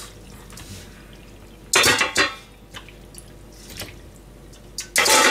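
Metal pots and pans clanking against each other and a stainless-steel sink, with water dripping. Two loud bouts of clattering, about two seconds in and near the end, with a few lighter knocks between.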